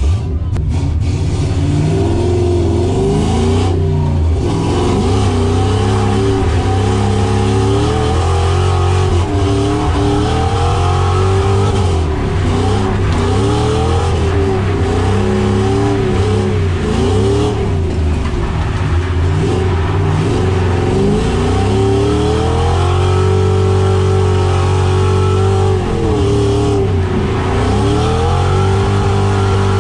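SN95 Ford Mustang drift car's engine revving up and down over and over while drifting, heard from inside the stripped cabin.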